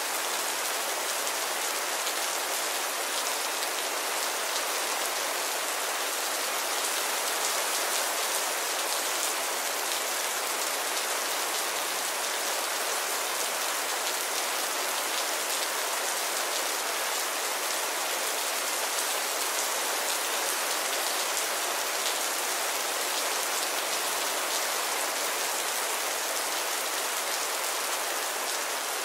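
Steady heavy rain falling: a dense, even hiss of many drops, with no change in strength.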